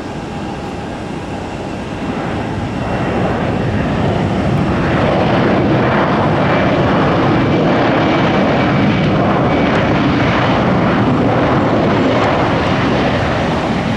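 Jet aircraft engines running, growing louder over the first few seconds and then holding steady, with a faint high whine above the rumble.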